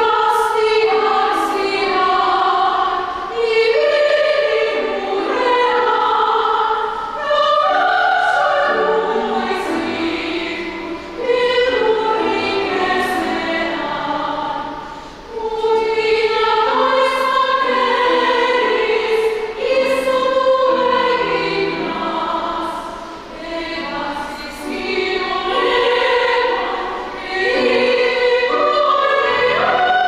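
Classically trained operatic voice singing a zarzuela song with piano accompaniment, in sung phrases of a few seconds each with brief breaths between them.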